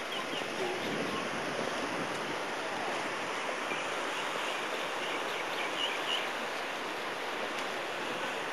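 Steady rush of ocean surf washing over a shallow lava-rock shore.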